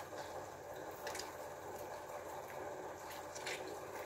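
A lemon half being squeezed by hand, juice dripping, with a few soft squelches about a second in and near the end.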